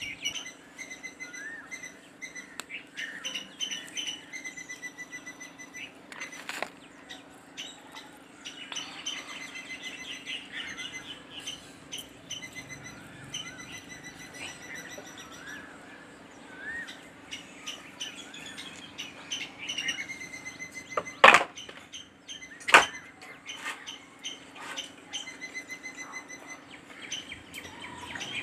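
Wild birds chirping and trilling in short repeated phrases over a steady low hum, with two sharp knocks about a second and a half apart two-thirds of the way through.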